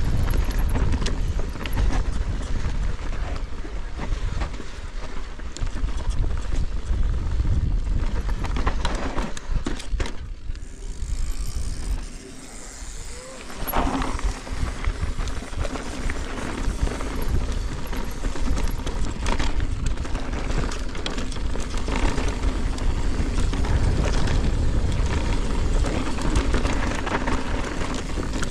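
Mountain bike riding fast down a rough gravel trail: wind rumbling on the action-camera microphone, tyres crunching over stones, and the chain and frame rattling with scattered knocks from hits. The noise eases briefly about halfway through.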